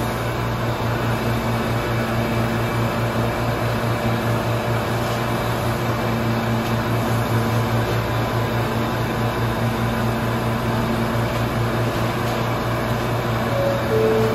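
Steady hum and whir of a New York City Subway train standing in the station, from its ventilation and on-board equipment, with a low throb underneath. Near the end comes a short two-note falling chime, like the door chime sounded before a subway train's doors close.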